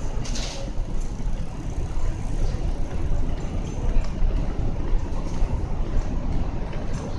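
Steady low rumbling background noise, with a brief hiss about half a second in.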